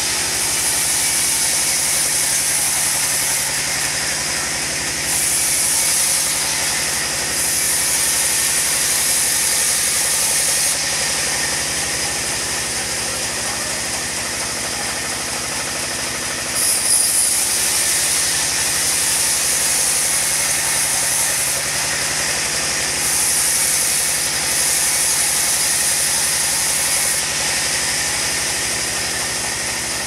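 Large sawmill band saw running steadily while a log is fed through its blade. A higher hiss comes and goes several times in stretches of a few seconds.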